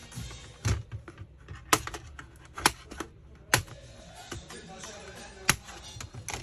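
Hard plastic clicks and taps from a laptop's case being worked apart by hand, about six sharp ones spaced roughly a second apart.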